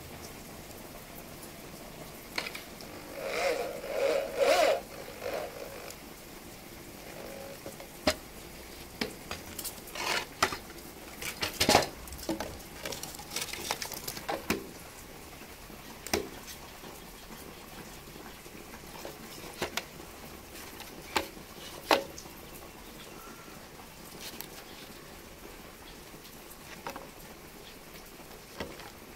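Scattered knocks, taps and clatter of a plastic meter box and hand tools being handled and set down on a wooden board, with a short rattling patch a few seconds in.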